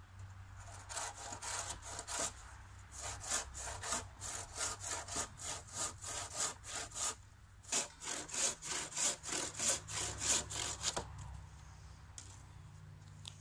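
Handsaw cutting through a pressure-treated timber beam by hand, in steady back-and-forth strokes about three a second, with two short pauses, stopping about two seconds before the end.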